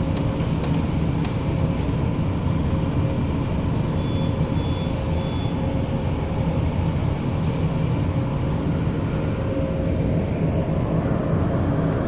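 Steady low drone of a cargo ship's engine and machinery, with a faint steady hum above the rumble.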